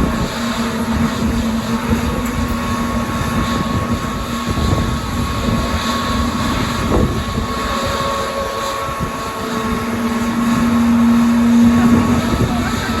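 Airbus A321neo's Pratt & Whitney geared turbofan engines running: a steady low hum with a fainter, higher whine above it and a rough rumble underneath. The hum grows louder about ten seconds in.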